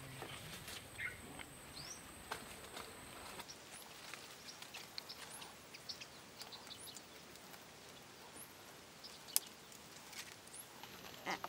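Faint outdoor background with scattered short, high bird chirps, and a few light taps and clicks of thin wooden sticks being handled and lashed together, one sharper click near the end.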